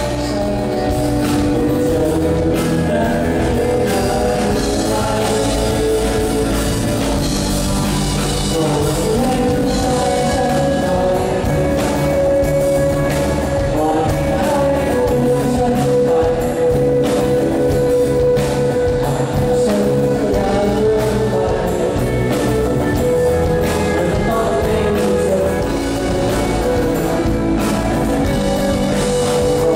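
A rock band playing live: a man singing over acoustic guitar, with electric guitar and drums.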